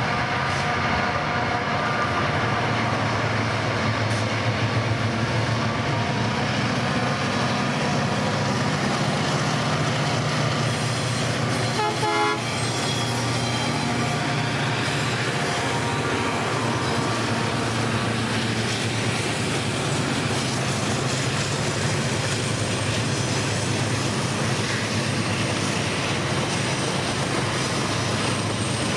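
Diesel locomotive of a heavy freight train running steadily, its engine drone continuous, with a brief run of clicks about twelve seconds in.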